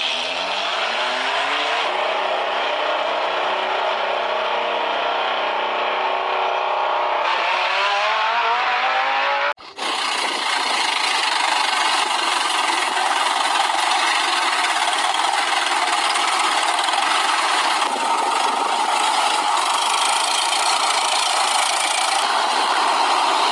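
A vehicle engine sound rising in pitch as it revs up, then, after a sudden break about ten seconds in, running steadily.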